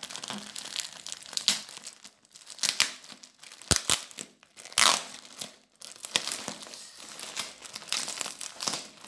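Plastic courier mailer being pulled open by hand at its taped seal: irregular crinkling and rustling of the plastic, with sharper tearing bursts, the loudest about five seconds in.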